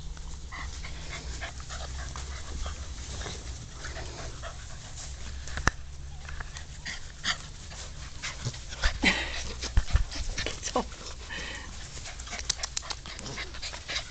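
German shorthaired pointer puppies playing in long grass: panting, with scattered rustles and scuffles as they tumble and chase, under a steady low rumble.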